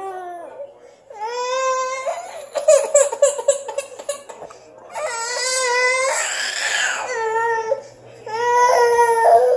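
Toddler crying: three drawn-out, high-pitched wails, the middle one the longest, with a strained, rough stretch in it.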